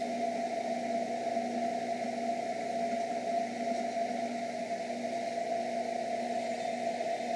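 Benchtop drill press running with a steady hum, its bit feeding into steel square tube, freshly oiled.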